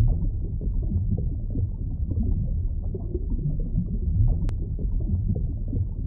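A steady, deep rumbling drone, all in the bass, in the style of an underwater ambience sound effect. A single faint click about four and a half seconds in.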